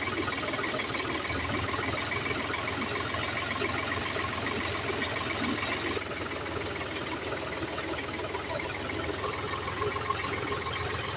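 Diesel farm tractor's engine running steadily while driving, with an even, fast mechanical clatter.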